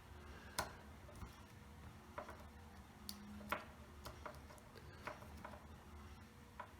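Faint, irregular metallic ticks of a lock pick working the pin stacks inside a SEGAL five-pin lock cylinder, a single click every second or so. The pins in the front of the lock are easy to overset.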